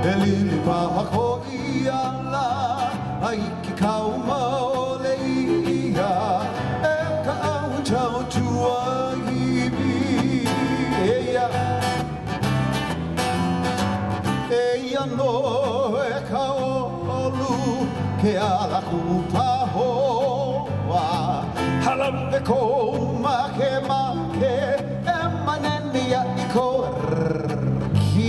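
Live Hawaiian music for hula: strummed guitars under a melody line with heavy vibrato.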